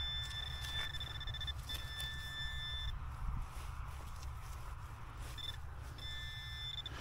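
Metal-detecting pinpointer giving a steady high beep as it is worked into the soil over a buried metal target. The beep breaks off briefly after about a second and a half, stops just before three seconds in, then comes back in short stretches near the end, over a low rumble.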